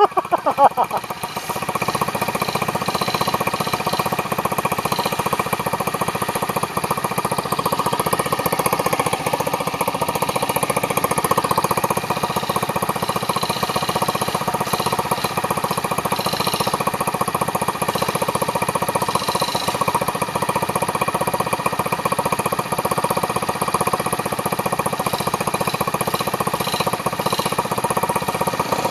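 Small single-cylinder motorcycle engine running steadily with a rapid, even chugging beat.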